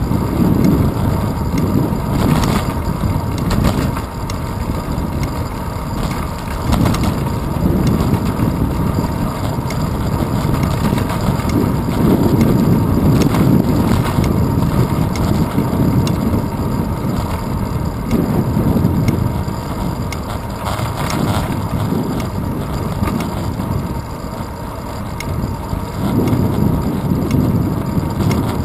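Wind buffeting and road rumble on a handlebar-mounted GoPro Hero 2 in its housing on a moving bicycle, swelling and easing with speed, with a few sharp knocks.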